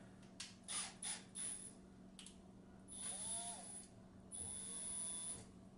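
Power drill run briefly twice off to the side, a faint whir with a steady high whine, after a few light clicks.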